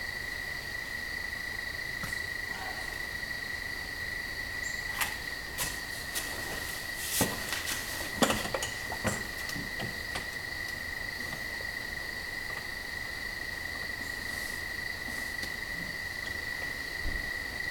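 A few light knocks and taps, bunched about a third to halfway through, as a wooden stick with a sponge on its end works inside the neck of a clay bottle to press its pushed-through bottom back down. A steady high-pitched whine runs underneath.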